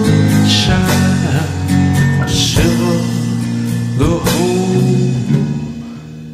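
A man singing a slow folk melody in long held, bending notes over acoustic guitar accompaniment; the music drops in level near the end.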